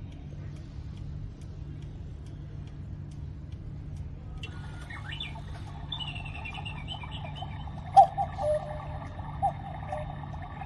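Electronic Black Forest cuckoo clock sounding its hourly call. A recording of chirping birds starts about four and a half seconds in. From about eight seconds in come loud two-note "cuckoo" calls, each a higher note falling to a lower one.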